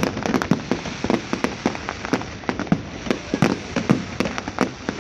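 Fireworks display going off in a rapid, irregular volley of cracks and pops, several a second.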